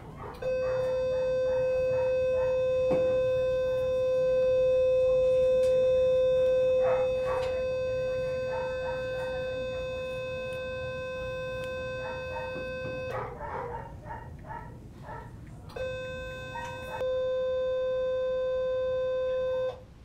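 Ellman radiosurgery unit sounding its steady electronic activation tone while its wire electrode cuts tissue: one long tone of about twelve seconds, a pause of a few seconds, then the tone again for about four seconds.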